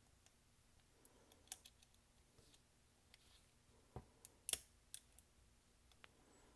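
Small metal parts clicking and tapping as they are handled and fitted into the open frame of a disassembled Smith & Wesson J-frame revolver. The clicks are scattered and sharp, with the loudest about four and a half seconds in.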